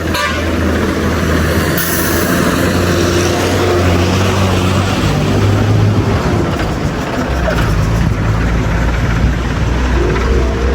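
Heavy diesel tipper truck engine running, its low note shifting a few times partway through.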